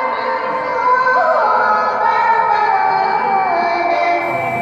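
Young woman reciting the Quran in melodic tilawah style through a microphone, in a high register. She holds long notes with slow ornamental turns, and the melody falls gradually in the second half.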